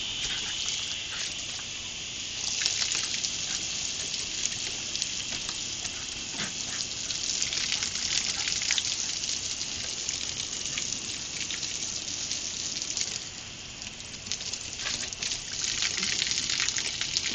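Water spraying from a garden hose with a steady hiss, splashing and pattering irregularly, briefly easing off about three-quarters of the way through.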